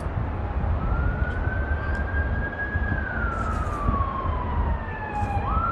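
A siren wailing: one slow rise, a long hold, a slow fall, then a quick rise again near the end, over a low background rumble.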